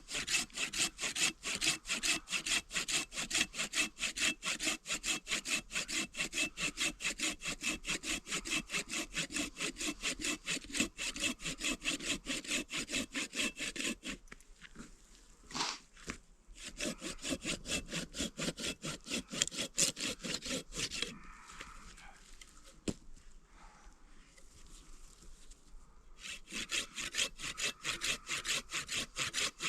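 Hand saw cutting through wood in quick, even back-and-forth strokes. It stops briefly about halfway through, pauses again for several seconds, then starts again near the end.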